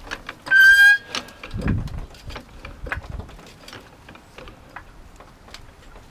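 Floor jack being worked under a car: scattered light metal clicks and knocks, with one short, loud, high squeak about half a second in and a dull thud a little later.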